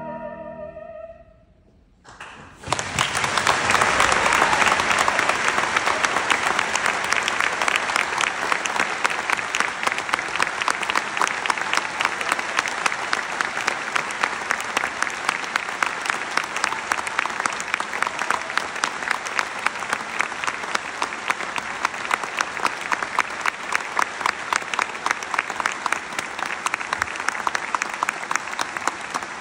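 An orchestra's closing chord dies away, there is a second of near silence, then a large theatre audience bursts into applause about two and a half seconds in, strongest at first and then continuing steadily.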